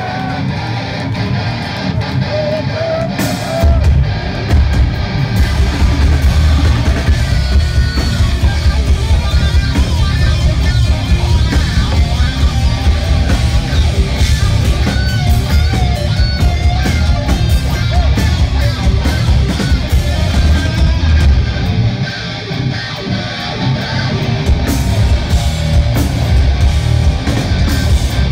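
Heavy metal band playing live: distorted electric guitars over bass and drums. The guitar plays with little low end at first, the full band's heavy low end comes in about four seconds in, thins out briefly a little after twenty seconds, then returns.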